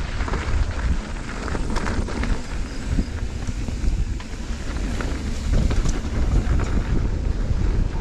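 Wind buffeting the microphone as a Fezzari La Sal Peak mountain bike rides downhill, with the rumble of its tyres on a dirt and gravel trail and scattered clicks and rattles from the bike.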